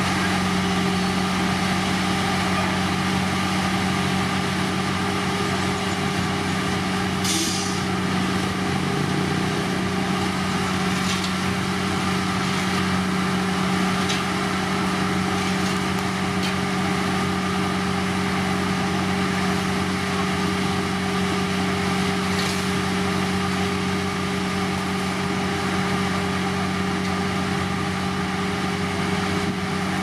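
Heavy diesel road-construction machinery running steadily under load, with a deep, even engine hum. A short hiss cuts in about seven seconds in, with a few fainter hisses later.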